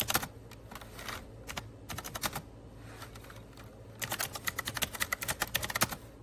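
Typing on an AULA F2088 mechanical keyboard with clicky blue switches: scattered bunches of keystrokes, then a fast run of clicks from about four seconds in.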